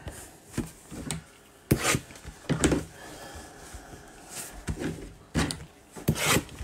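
Hands handling a Topps Inception cardboard box and hard plastic card holders on a tabletop: about eight light knocks and taps, spaced irregularly, with some rubbing between them.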